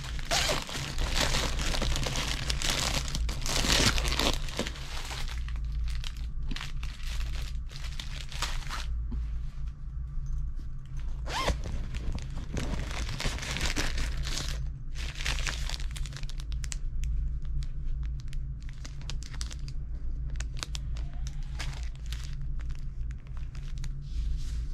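Plastic packaging crinkling and fabric rustling as hands pull items from a plastic bag and handle them, in irregular bursts, over a steady low hum.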